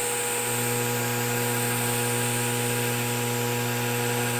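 DC TIG welding arc from an HTP Invertig 251 inverter, lift-started at about 80 amps, burning steadily with an even hiss over a low hum.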